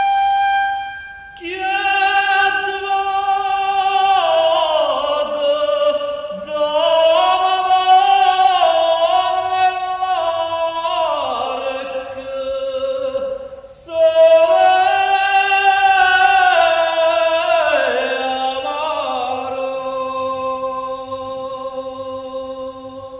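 A Neapolitan song playing from a 45 rpm vinyl single on a turntable: the introduction before the lead vocal, in three long melodic phrases of held, gliding notes, fading near the end.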